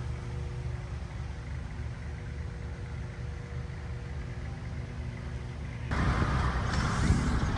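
An engine running steadily with a low rumble and a faint steady hum. About six seconds in a louder rushing noise comes in over it.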